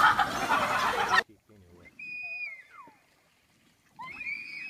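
A heavy splash into a swimming pool, cut off abruptly about a second in. It is followed by high-pitched yells, once after a short silence and again near the end.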